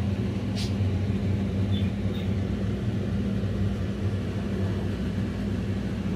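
A steady low mechanical hum, with a few brief faint high clicks or chirps over it.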